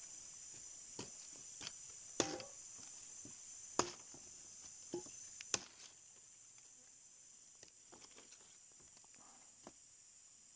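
Sharp knocks of a blade cutting bajakah root into pieces: three loud strokes about a second and a half apart in the first half, then fainter knocks and handling of the woody pieces. A steady high-pitched insect drone runs underneath.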